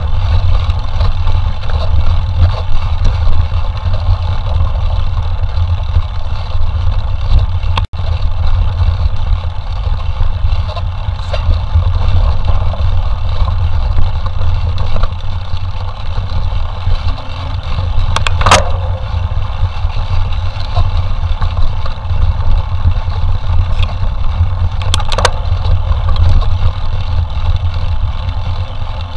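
Steady loud wind rumble on the microphone of a camera riding on a mountain bike, with a few sharp knocks from the bike, one about two-thirds of the way in and another near the end.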